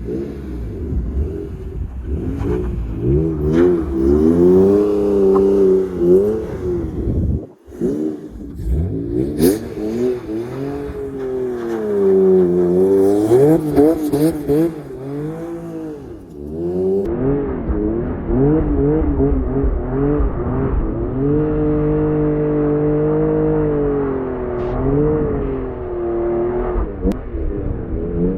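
Honda NSX V6 engine revving up and down again and again as the car is thrown through donuts on snow, the pitch swinging with each blip of the throttle.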